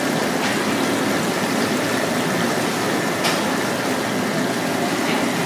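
Steady rush of water bubbling and churning in an aerated live-seafood tank, with a couple of faint clicks.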